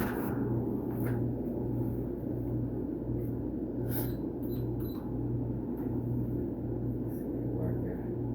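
Steady low mechanical hum that pulses gently, with a few faint clicks.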